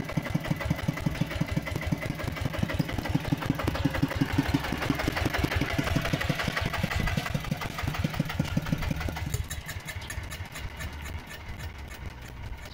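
Single-cylinder diesel engine of a two-wheel walking tractor chugging with a steady fast beat. The beat becomes fainter from about nine seconds in.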